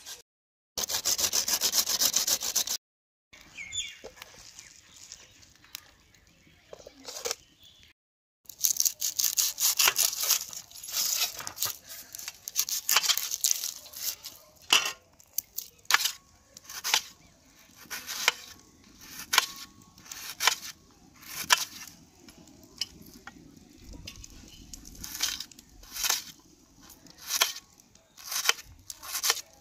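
Radish being grated on a metal hand grater for a couple of seconds, then, after a short break, a kitchen knife peeling, slicing and chopping a red onion on a steel plate, the blade knocking sharply on the metal about once a second.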